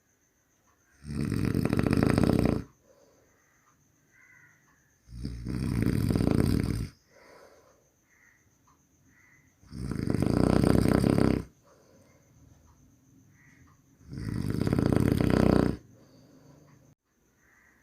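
A person snoring: four loud snores, each a little under two seconds long, coming at an even pace about every four seconds, with quiet breathing between them.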